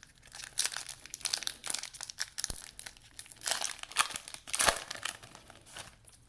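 Crinkling and tearing of a plastic-foil trading-card pack wrapper being ripped open and handled, in irregular crackles with a louder rip near the end.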